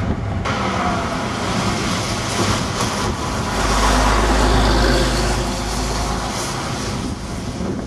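Diesel engine of a preserved double-decker bus passing close by and pulling away, its low engine drone loudest from about three and a half to six seconds in, over general road noise.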